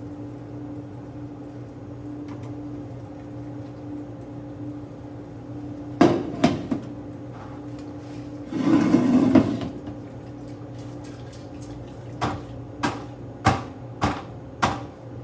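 Chicken stock being poured through a strainer into a bucket: a couple of sharp clanks about six seconds in, a short gush of pouring liquid around nine seconds, then five sharp knocks about half a second apart near the end, over a steady low hum.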